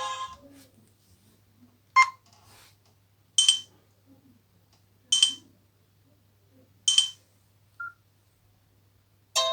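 Nokia C5-00 keypad beeps: four short, sharp key tones about one and a half to two seconds apart, as the menu is stepped through between ringtones, with a faint short blip after them. The previous melody dies away at the start and the next one begins right at the end.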